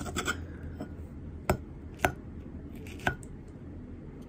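Four sharp, separate clinks of tableware handled on a table, spaced about half a second to a second apart, over a low steady hum.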